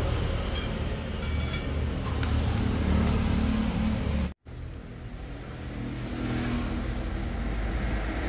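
A motor vehicle running, a steady low engine rumble. The sound cuts out abruptly for a moment a little over four seconds in, then carries on.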